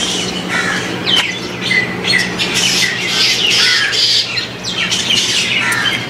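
Many shrill squawks and chirps overlapping in quick succession, from a group of animals calling, over a steady low hum.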